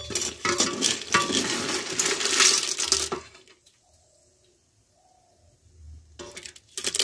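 Perforated metal skimmer scraping and clinking against a metal cooking pot as it scoops boiled snails out of hot water. The clatter lasts about three seconds and then goes quiet, and another burst of clattering starts near the end.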